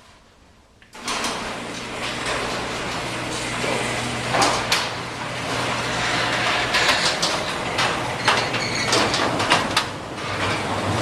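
Storm wind blowing hard across the camera's microphone. It rushes in suddenly about a second in, with scattered sharp clicks through it.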